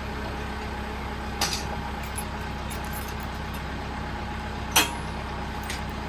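Tractor engine idling steadily, with two sharp metallic clinks from a lifting chain and hook being handled, a light one about a second and a half in and a louder one near five seconds.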